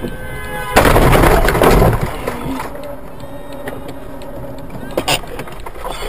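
Car collision: a loud crash about a second in that lasts just over a second, then a single sharp knock near the end.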